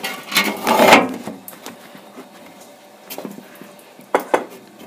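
Handling noise at a cluttered workbench: a loud scraping rustle lasting about a second, then a few sharp knocks as things on the bench are moved.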